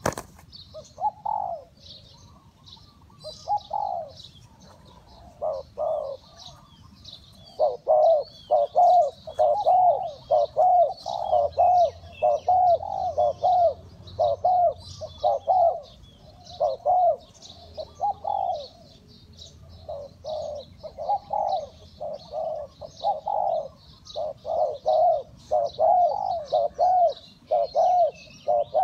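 Spotted dove cooing: a long series of repeated coo notes, sparse at first and coming in quick runs from about eight seconds in. Small birds chirp faintly in the background.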